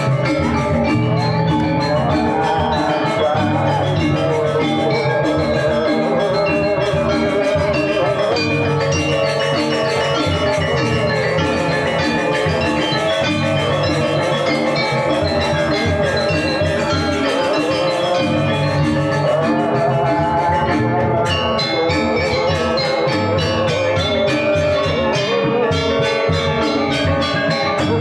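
Balinese gamelan music: metallophones play quick runs of ringing metallic notes over a steady low beat.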